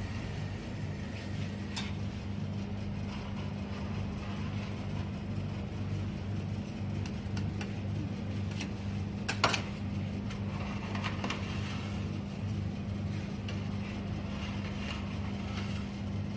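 Rolled ice cream machine's refrigeration compressor running with a steady low hum, with scattered light clicks and one louder knock about halfway through.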